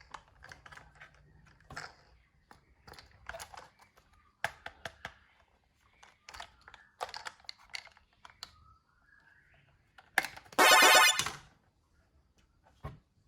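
Scattered light clicks and taps of toys being handled, then about ten seconds in a loud, buzzy sound effect with a steady tone lasting about a second.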